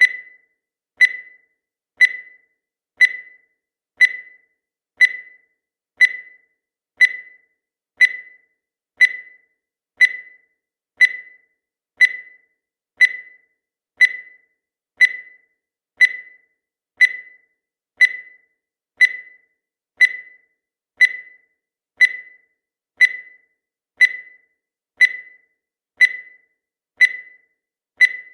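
Countdown timer sound effect: a short, high beep that fades quickly, repeated once every second, evenly.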